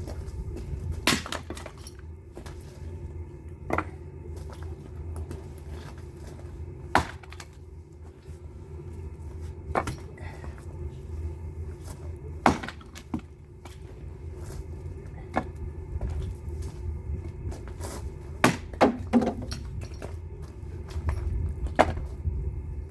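Firewood being handled or split: sharp wooden cracks and knocks every two to three seconds, two of them in quick succession about three-quarters of the way in, over a steady low rumble.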